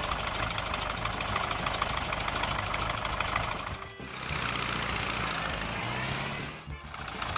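Truck engine sound effects running steadily as the vehicles drive, over background music, with a brief break and change about four seconds in.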